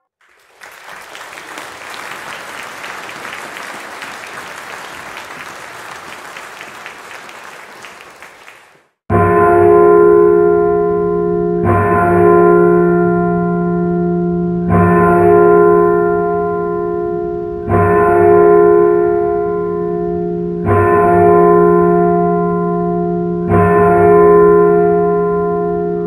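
Moderate applause in a church for about eight seconds, then a large tower bell tolling: six strikes about three seconds apart, each one ringing on and fading into the next.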